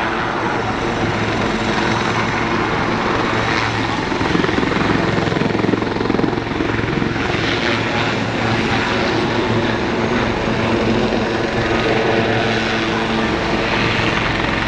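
Royal Navy Lynx helicopters flying past in a low display, a steady drone of turbine engines and rotors with a constant low hum.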